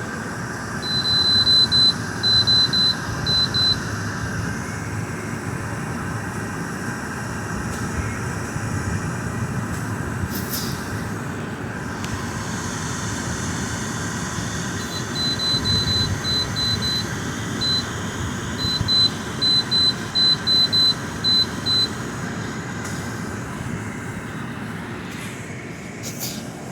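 GE dehumidifier running steadily at full fan speed. Two runs of short high beeps cut through it, one about a second in and a longer one from about fifteen to twenty-two seconds.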